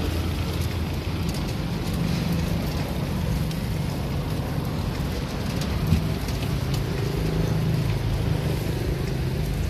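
Steady hiss of skewered meat sizzling over a charcoal grill, with an engine running steadily close by.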